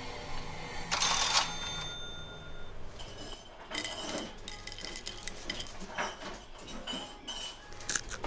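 Foley for a shop scene: a short burst about a second in with a bell-like ring that hangs on, like a cash register, then a run of sharp clinks and rattles of small hard objects.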